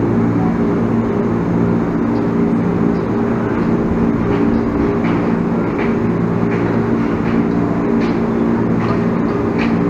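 Electric commuter train standing at the platform with its doors open, its onboard equipment giving a steady, even hum. A few faint short high chirps come in the second half.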